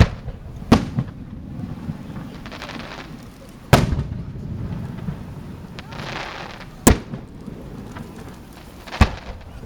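Aerial firework shells bursting in a finale display: five sharp bangs at uneven intervals, the loudest about four seconds in, over a steady low rumble.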